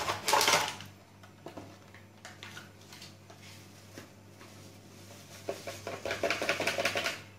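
Liquid whipping cream being poured from its carton into the plastic bowl of a food processor: light clicks and handling noises, busier and crackly in the last two seconds, over a faint steady low hum.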